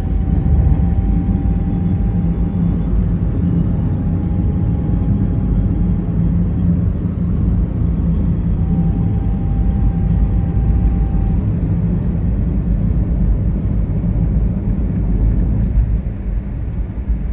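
Steady low rumble of a taxi's tyres and engine heard from inside the cabin while driving at road speed. A faint steady tone sounds twice over the rumble in the first half.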